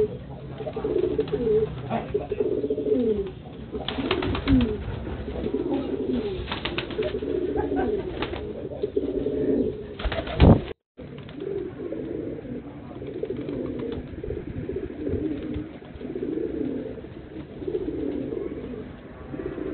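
Domestic pigeons cooing, several at once, in wavering low calls that run on throughout. A few short sharp noises break in along the way, the loudest about ten seconds in.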